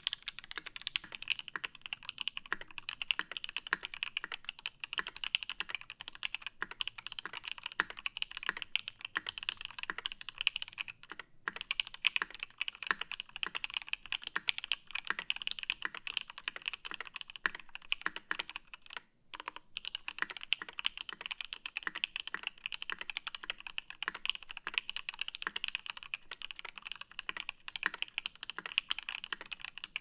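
Steady typing on a Matrix 8XV2.0 mechanical keyboard with an aluminium plate and Krytox-lubed Pinoko switches. It first wears GMK keycaps, then KAT keycaps, with a short break in the typing when they change. There is a second short pause later on.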